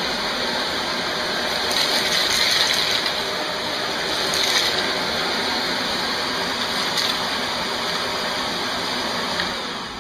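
Shark Navigator NV356E upright vacuum running at full suction with the brush roll off: a steady rush of air with a high motor whine. There are brief louder rushes as it picks up pieces of cereal from the carpet, and near the end the sound drops away as the motor winds down.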